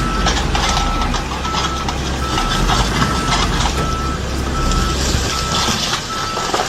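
Reversing alarm on a construction vehicle, beeping one even tone at a steady pace of about one beep every 0.8 seconds. Underneath are the vehicle's engine rumble and irregular knocks and clatter.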